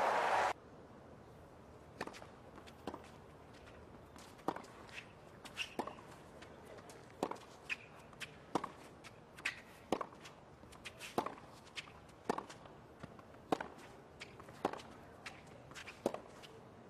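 Tennis ball struck back and forth in a long rally on a hard court: a sharp pock from a racket about once a second, with fainter bounces between the hits. It opens with a loud burst of crowd noise that cuts off abruptly half a second in.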